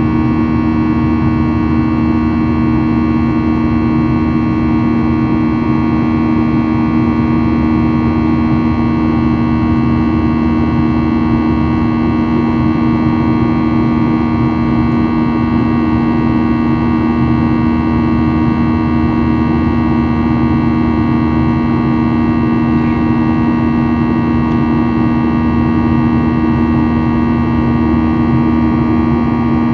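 Steady jet engine and airflow noise of a Boeing 737-800 in flight after takeoff, with its CFM56 engines running at a constant setting. A strong, even two-note hum sits under a wide hiss, with no change in level or pitch.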